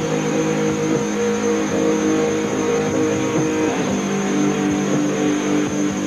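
Heavily distorted electric guitars from a live metal band holding long sustained chords, shifting to a new chord nearly four seconds in, over tape hiss.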